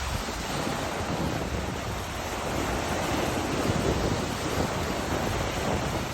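Sea waves washing on a shore as a steady, even hiss, with some wind on the microphone.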